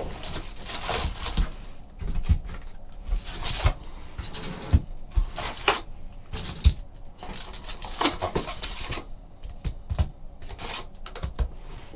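A trading card box and its packs being handled on a table: rustling, with irregular clicks and taps.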